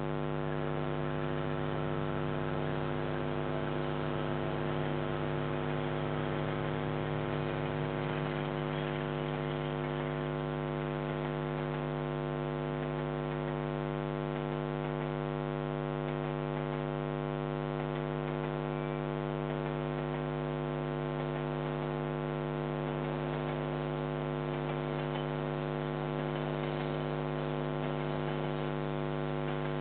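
Steady electrical mains hum with many overtones, unchanging throughout, and a faint rushing noise under it for the first several seconds.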